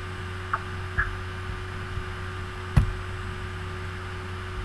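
Steady electrical hum with faint background noise. Two short faint blips come within the first second, and a single sharp click follows a little before three seconds in.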